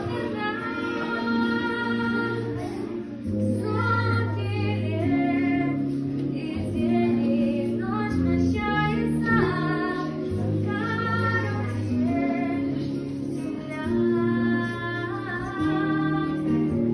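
A young female voice singing a song solo over a recorded instrumental accompaniment with a steady bass line.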